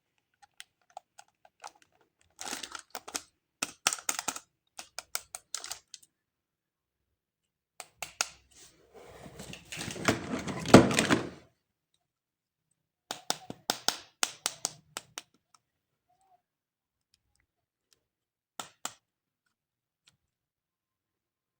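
Hands handling plastic toys and packaging, making quick clusters of small clicks and taps. About halfway there is a louder noisy stretch of about three seconds, then more clicks and a last pair near the end.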